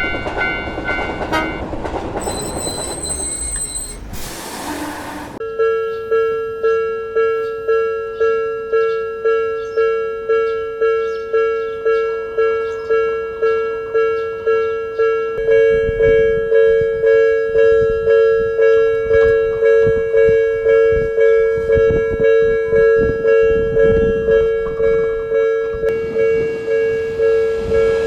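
Japanese railway level-crossing alarm ringing its repeating "kan-kan" tone, about three strikes every two seconds, with a second, slightly higher tone joining about halfway through. Through the second half a train runs past, its wheels clacking over the rail joints. The first few seconds hold other tones and a short rush of noise before the alarm settles in.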